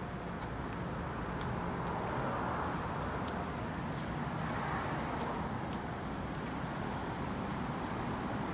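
Chubu Koki LL-1000 lathe running, a steady mechanical noise with a low hum and a few faint ticks.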